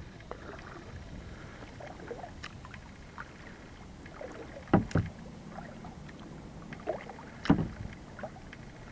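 Kayak paddle working calm river water: small drips and trickles off the blade, with a few louder paddle-stroke splashes, two close together about five seconds in and another a couple of seconds later.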